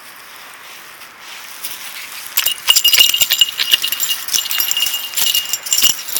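Loud, rapid metallic jingling and clinking that starts about two seconds in and goes on to the end, a dense run of small clinks with a bright ringing.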